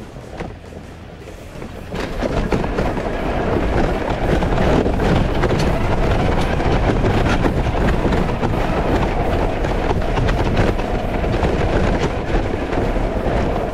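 Modified Power Wheels ride-on toy rolling down a rough hill, a loud rattling rumble full of knocks that builds about two seconds in. The knocking is the tires hitting the bodywork as the suspension travels, since there is no clearance for them.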